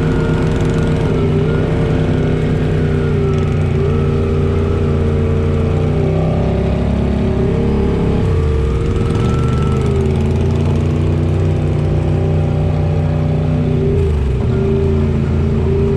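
A side-by-side UTV's engine running under way, loud and steady, with the revs dropping and climbing back about halfway through and again near the end.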